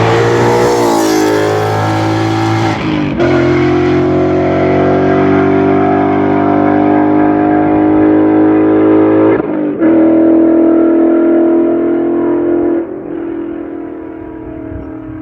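5.0 V8 exhaust, run through an X-pipe and H-pipe into a Corsa resonator, under hard acceleration. The pitch climbs steadily, breaks briefly for gear shifts about three seconds in and again near ten seconds, then the note falls away as the throttle eases near the end.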